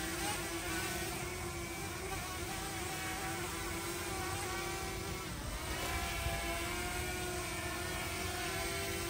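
Small quadcopter drone's propellers buzzing steadily in flight as it is brought down to land; about halfway through the pitch dips briefly and rises again.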